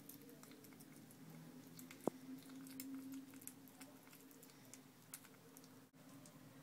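A kitten eating soft mousse wet food from a stainless steel bowl: faint, wet, irregular smacking and lapping clicks over a low steady hum. One sharp tick about two seconds in.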